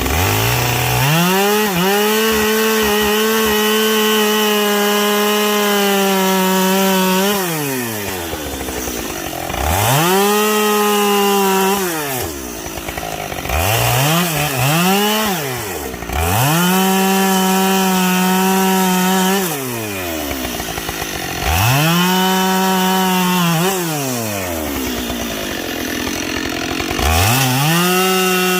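Two-stroke gas chainsaw bucking logs: the engine revs up to full throttle and holds steady through each cut, then falls back to idle between cuts, about five times, with a quick double blip of the throttle in the middle.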